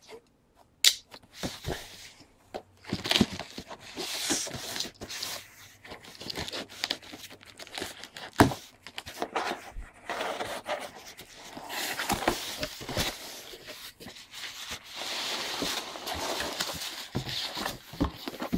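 Cardboard shipping box being opened by hand: a blade slitting the packing tape, cardboard flaps scraping and knocking as they are pulled open, then packing peanuts and plastic wrap rustling and crinkling.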